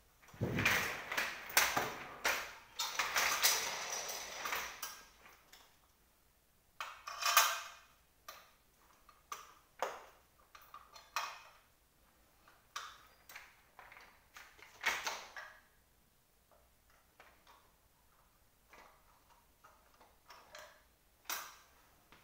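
Knocks and metallic clatter from a hand tool worked against an office chair's parts: a dense run in the first few seconds, then single knocks every second or two.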